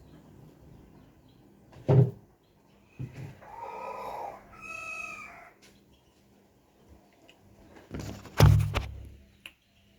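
Two short chicken calls, one after the other, about three and a half seconds in. A loud thump comes before them and another near the end.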